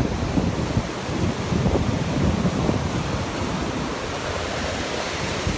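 Ocean surf breaking and foam washing up the sand in a steady wash, with wind buffeting the phone's microphone.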